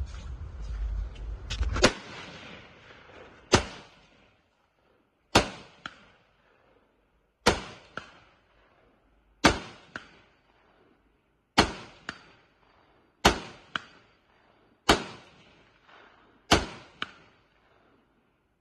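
Rifle fired slowly from the prone position, nine sharp shots about two seconds apart. Most shots are followed about half a second later by a fainter second crack. A low rumbling noise runs before the first shot.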